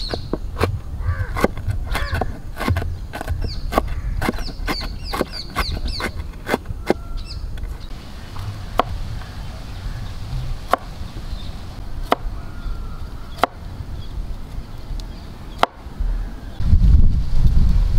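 Steel cleaver chopping vegetables on a thick wooden board: a quick run of chops through cabbage at first, then slower single chops slicing a carrot. Birds chirp in the background early on, and near the end wind buffets the microphone.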